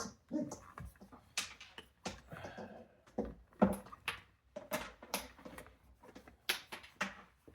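Irregular clicks, knocks and rustling of hands handling gear on a workbench: a circuit board being plugged in and cables and multimeter leads moved about.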